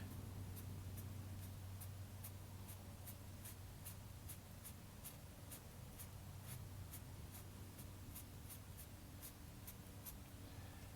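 Small filbert paintbrush dabbing acrylic paint onto a canvas, a light tap about three times a second, over a faint steady low hum.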